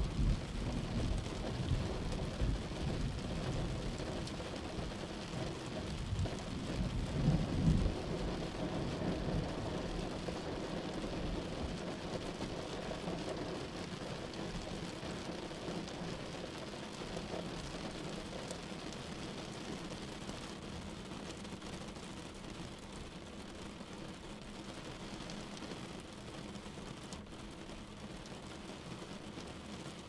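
Rain and thunder: a steady hiss of rain, with low rolls of thunder swelling near the start and again about seven seconds in, then rain alone, slowly growing quieter.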